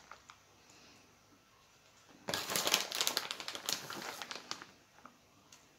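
Plastic packet crinkling as it is handled and shaken, a dense burst of rustling from about two seconds in, then a few scattered crackles.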